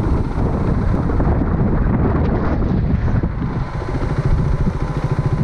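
Motorcycle engine running while riding, under heavy wind noise on the microphone.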